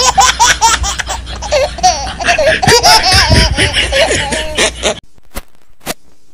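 Hearty laughter in quick repeated bursts, breaking off abruptly about five seconds in.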